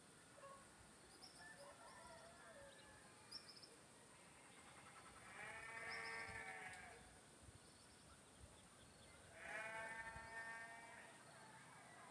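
Farm animal bleating twice, each call long and wavering, about five and nine seconds in, with faint bird chirps in the background.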